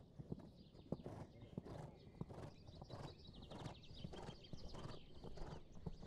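A dressage horse cantering on a sand arena: its hooves strike the soft footing in a steady, repeating stride rhythm.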